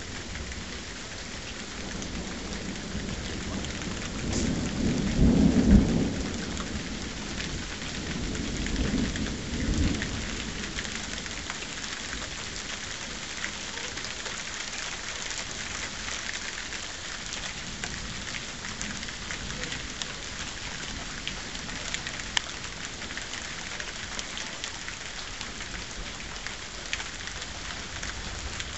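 Steady rain hissing throughout, with scattered drips tapping. A roll of thunder rumbles up about four seconds in, loudest around six seconds, swells once more and fades away by about ten seconds.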